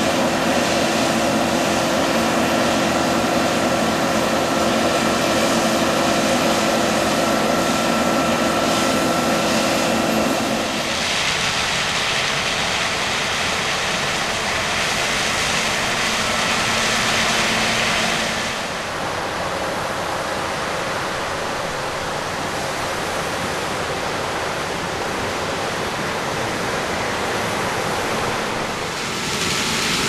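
Tractor-driven mobile maize mill running, a steady machine hum with the rushing hiss of ground corn moving through the augers and conveyor. The sound turns brighter and more hissing about a third of the way in, then duller and a little quieter about two-thirds in.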